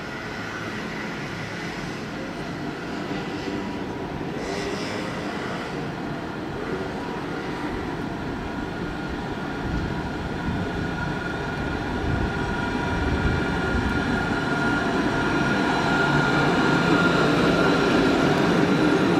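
An Alstom Citadis tram rolling along its rails and passing close by, its electric drive giving a steady whine over the rumble of the wheels. It grows steadily louder as it comes near, and there is a brief hiss about four seconds in.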